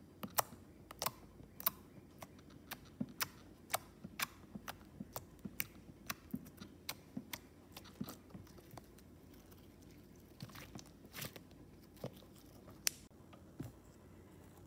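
Clear green slime being poked and pressed with fingertips, giving a string of sharp, short sticky clicks, about two a second.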